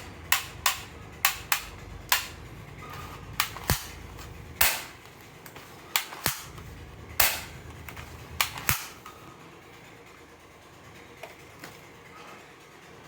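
Plastic toy revolver being fired, a string of about a dozen sharp snaps at irregular intervals, several in quick pairs, with two faint ones near the end.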